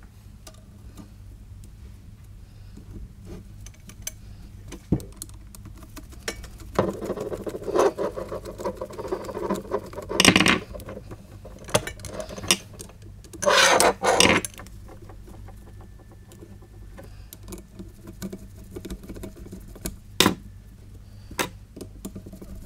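Fibreglass exhaust heat wrap rubbing and rustling as it is wound tightly around a metal motorcycle downpipe by gloved hands, with scattered small clicks and knocks of the pipe. A few louder scraping bursts come around the middle.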